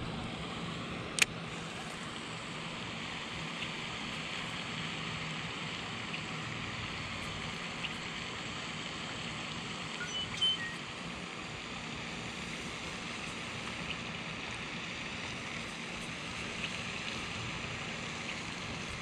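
Steady outdoor hiss with a single sharp click about a second in and a few faint high chirps a little past the middle.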